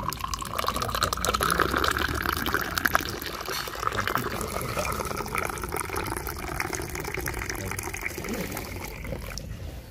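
Hot mint tea poured in a thin stream into small glass tea glasses, splashing and filling them one after another with a continuous pouring sound.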